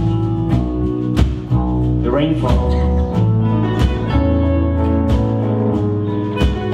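Live country-folk band playing: drums, bass guitar, electric and acoustic guitars and keyboard, with a lead line that glides and wavers in pitch about two seconds in.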